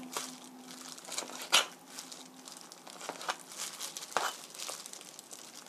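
A kitchen knife cuts raw chicken on a plastic cutting board, giving a few sharp knocks of the blade on the board, the loudest about one and a half seconds in. A plastic glove crinkles as it handles the meat.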